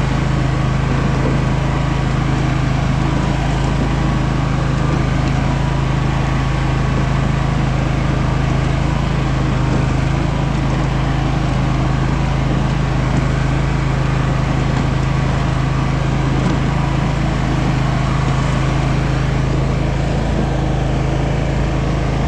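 Engine of a 16 hp Simplicity lawn tractor running at a steady speed while the tractor is driven along.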